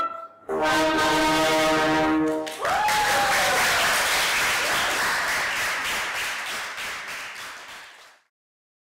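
Wind quintet of flute, two clarinets, bassoon and French horn playing the closing notes of a medley and holding a final chord for about two seconds. Applause follows and fades out.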